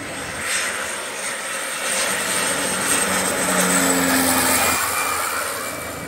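Small twin-engine propeller plane passing low overhead on its landing approach; the engine and propeller noise swells to a peak about three to four seconds in, then eases off.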